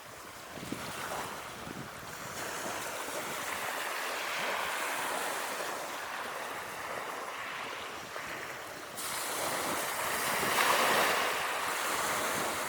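Sea waves surging and washing on the shore, a steady rushing hiss that ebbs and swells, with a fresh surge about nine seconds in.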